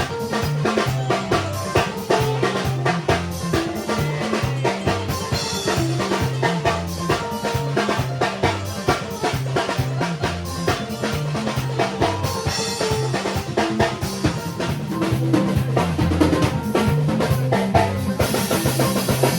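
Band music with a busy drum kit, rimshots and snare over a stepping bass line, keeping a steady beat.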